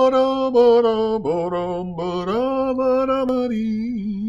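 A lone unaccompanied voice singing long, drawn-out notes that step between a few pitches, like a chant.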